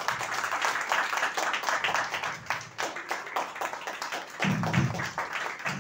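A room of people clapping: steady applause from many hands.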